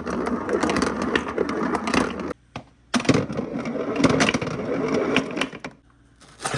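Marbles rolling and clattering down a wooden marble run, in two rattling runs of about two and a half seconds each, then a single click near the end.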